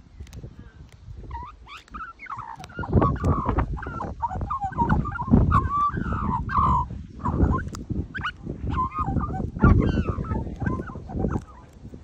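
Australian magpies calling in a long string of warbling, gliding notes that start about a second in, over low rumbling noise on the microphone.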